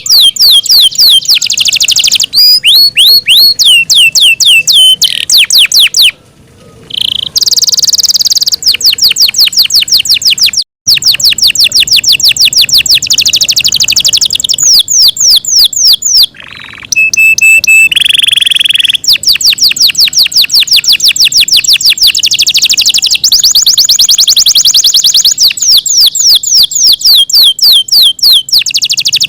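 Yorkshire canary singing loudly in long, rapid trills of repeated falling whistles, several each second. A brief break comes about six seconds in, and a held, steady note sits in the middle of the song.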